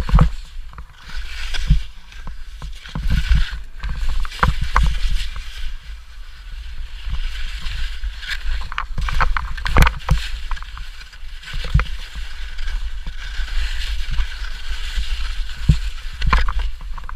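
Skis hissing and slicing through snow on a fast, steep descent, with wind rumbling on the microphone and sharp knocks each time the skis hit bumps and chunks of snow.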